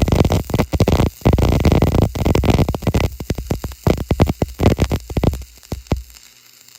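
Electric welding arc crackling and sputtering irregularly, then dying away about six seconds in as the arc is broken.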